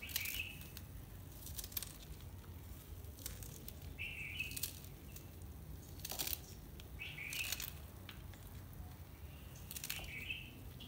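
A small knife cutting through a bunch of fresh spinach leaves held in the hand, with faint crisp cuts every couple of seconds.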